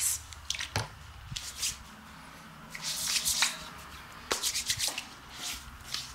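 Hands rubbing and swishing in short, irregular bursts of hissy noise as the barber works her hands before a face massage.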